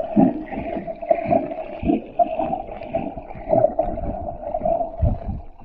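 Underwater sound through a camera held below the surface: muffled gurgling and sloshing of water with several low surges, over a steady wavering mid-pitched hum.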